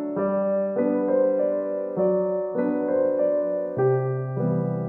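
Background solo piano music: a melody over held chords, with a new note or chord struck about every half second to second.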